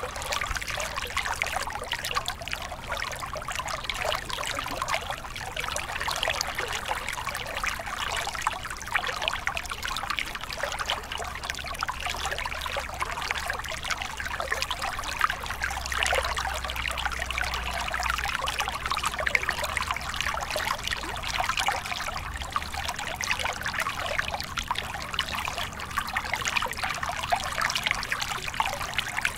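Small mountain stream spilling in a little cascade over rocks into a pool: steady trickling and splashing water, full of small splashes.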